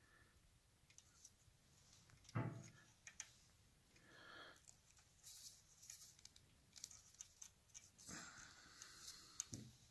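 Faint clicks, scrapes and handling noises from hand crimping pliers squeezing an insulated ring terminal onto a wire, with one sharper knock about two and a half seconds in.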